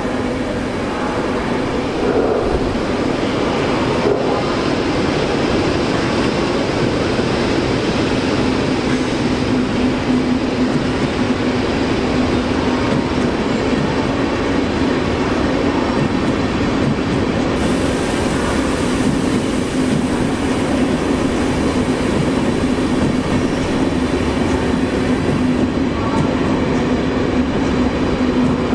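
Passenger train of SBB coaches rolling past a platform: steady rumble and wheel-on-rail noise, with a steady low hum underneath from about eight seconds in.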